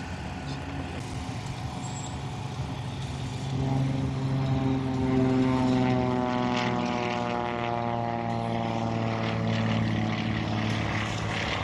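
Aerobatic biplane's propeller engine droning as it flies past. The engine note swells about four seconds in, then falls slowly in pitch through the rest of the pass.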